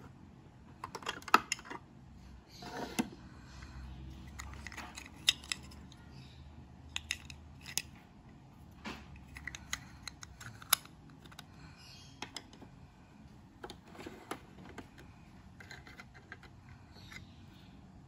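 Scattered sharp clicks and light clatter of tiny toy kitchen pieces being handled: the tiers and lid of a miniature steamer pot knocking together, and small plastic drawers sliding open and shut.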